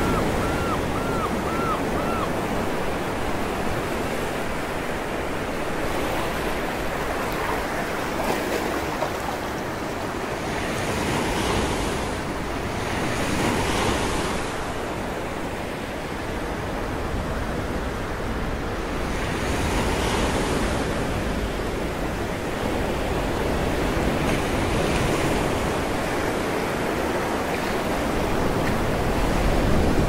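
Mediterranean surf breaking and washing over a rocky shore in a continuous rush, swelling into louder surges of spray every few seconds, with wind blowing across the microphone.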